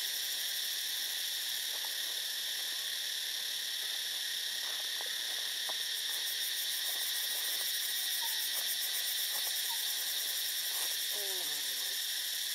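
Dense, steady chorus of forest insects, a high-pitched pulsing hiss filling the background. Near the end a short falling call cuts in once.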